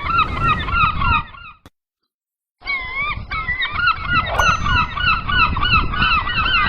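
A flock of seagulls calling, many short overlapping cries at once over a low rumbling background. It breaks off abruptly about a second and a half in, silent for about a second, then resumes just as dense.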